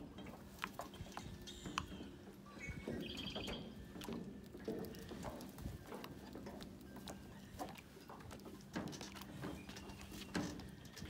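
Scattered light knocks and clicks as a rope is handled along a wooden dugout canoe moored against a dock, with a brief high trill about three seconds in.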